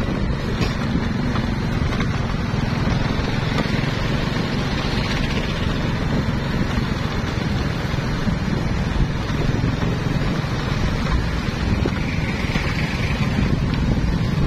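Wind buffeting the microphone over a steady rumble of vehicle engines, mostly motorcycles, in a road traffic jam.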